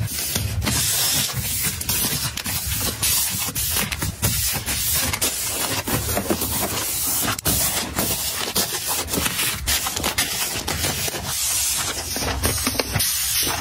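Packs and boxes of facial tissue rustling and crinkling as they are handled and stacked on a shelf, with many small knocks as they are set down.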